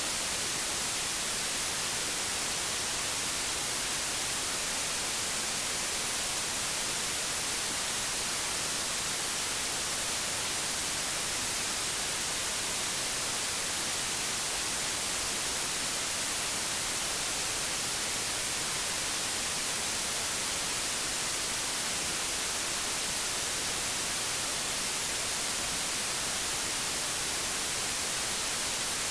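Static from an analogue television tuned to no channel: a steady, even hiss, strongest in the high end.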